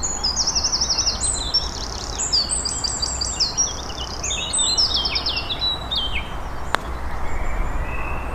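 Songbirds singing rapid, repeated high chirping phrases for the first six seconds or so, then one sharp click about seven seconds in as a putter strikes a golf ball. A low steady rumble runs underneath.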